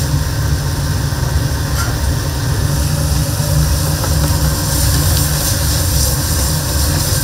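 Steady low roar of commercial kitchen cooking, with a hiss over it, typical of high-flame gas burners under stir-fry.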